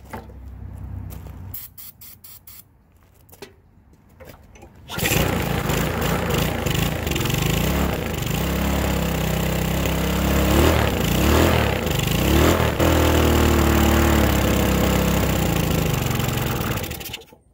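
A bladeless walk-behind lawnmower's small gasoline engine starts about five seconds in, after a few clicks. Its speed rises and falls as the governor hunts with no blade to act as a flywheel, then it steadies while the throttle linkage is held by hand. It cuts off suddenly near the end.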